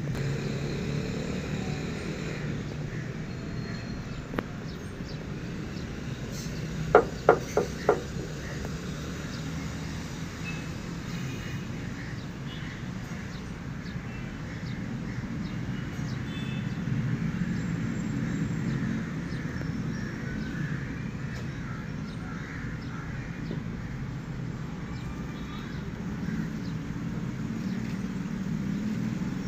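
Outdoor background ambience: a steady low rumble. About seven seconds in come four short, sharp pitched sounds in quick succession.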